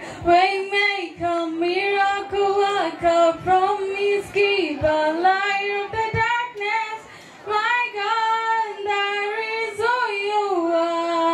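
A girl singing a cappella into a microphone: one unaccompanied voice carrying a slow melody of held notes that glide between pitches, ending on a long held note near the end.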